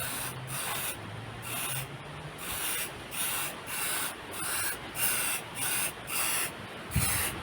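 Hand sanding of a painted metal hubcap: rhythmic back-and-forth rubbing strokes, about two a second, with a short low thump near the end.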